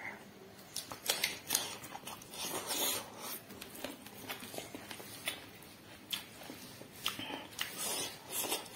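A person chewing and biting food, with irregular wet clicks and crunches.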